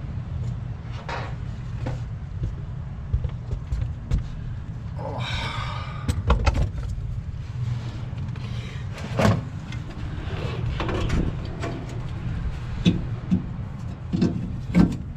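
Scattered metal knocks, clicks and clanks of hand tools and sheet-metal parts as a replacement inducer motor is fitted into a rooftop unit, with a brief whirr about five seconds in, over a steady low hum.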